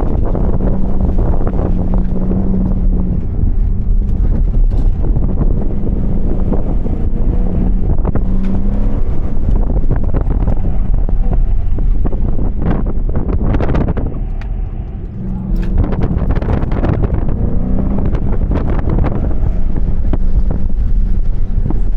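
Muffler-deleted 2015 Mustang GT's 5.0 V8 being driven hard through an autocross course, loud and steady under throttle. It eases off briefly about two-thirds of the way through, then pulls hard again. Wind buffets the microphone.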